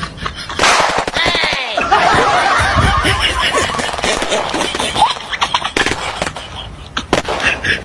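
Red pneumatic breaker (air-powered jackhammer) firing rapid hammer blows in bursts, like machine-gun fire, with voices and laughter over it.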